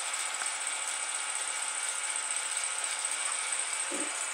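Steady whir and hiss of workshop machinery left running: a wood lathe and its dust-collection hose.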